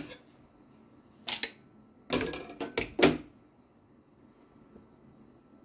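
Sharp clacks and knocks of hard plastic embroidery hoop and hooping-fixture parts being handled and set down on a table: one at the start, a double knock about a second and a half in, and a quick cluster of knocks around two to three seconds in.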